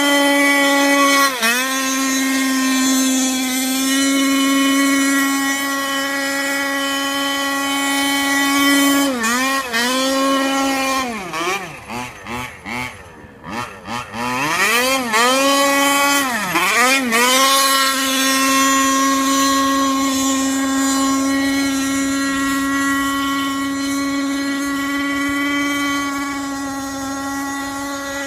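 Two-stroke petrol engine of a 1/5-scale Losi 5ive-T RC truck, RCMK-tuned, running at high steady revs as the truck drifts on snow. About nine seconds in, the revs drop and climb again several times in quick succession, fading for a few seconds in the middle, then the engine holds its high revs once more.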